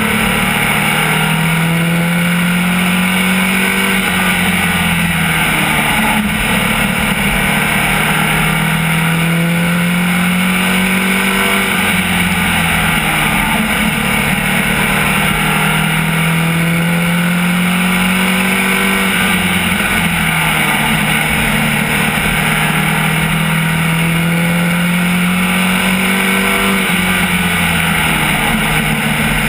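An SK Lite modified race car's engine, heard from inside the cockpit at racing speed. The engine note climbs as it pulls, then drops sharply as the throttle is lifted, in a repeating cycle every several seconds as the car laps the short oval, with constant wind and road noise underneath.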